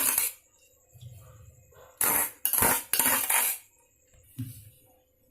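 A serving spoon scraping and knocking against a cooking pot as rice is spooned in: one burst at the start, then three short scrapes close together about two seconds in, and a light knock near the end.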